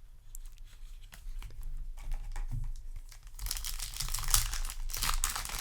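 Foil booster-pack wrapper crinkling and being torn open, starting about three and a half seconds in after a few faint ticks.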